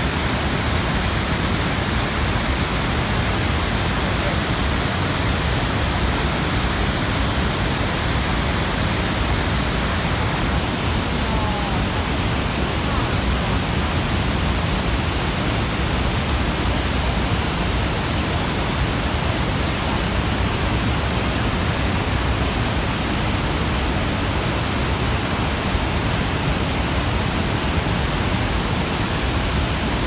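Rhine Falls, a large waterfall: a steady, loud rush of water pouring over and around rocks, with no change in level.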